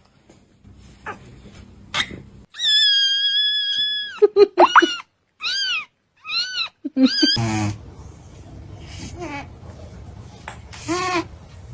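Cat meowing: one long, high, drawn-out cry, then a run of short meows that rise and fall in pitch, with one more meow near the end.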